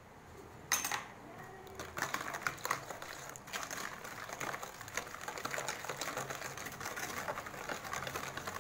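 Wire whisk beating a runny cake batter in a bowl: a fast, steady patter of the wires clicking against the bowl's side, starting about two seconds in, after a single knock about a second in.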